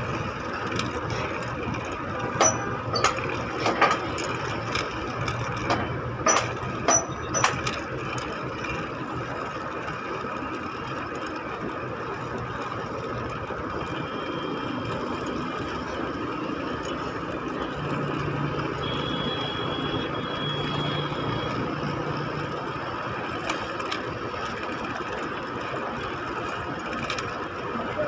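Electric hoist of a suspended working platform running steadily with a constant whine, as the platform is lowered on its wire ropes through the fall-arrestor safety lock. Several sharp clacks come in quick succession in the first quarter.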